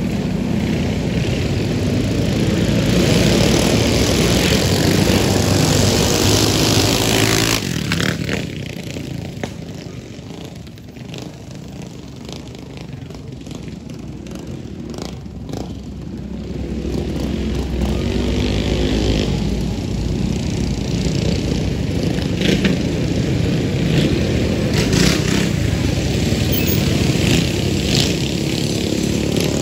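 Mini bike engines running hard in a dirt drag race. The noise drops sharply about seven and a half seconds in, stays lower for several seconds, then builds again and stays loud.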